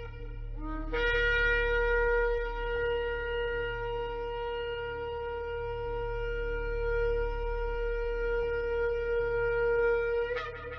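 Shofar blown in one long held note of about nine seconds, rich in overtones. It begins with a short low note that jumps up to the main pitch about a second in and ends with a brief upward break near the end, over a steady low hum.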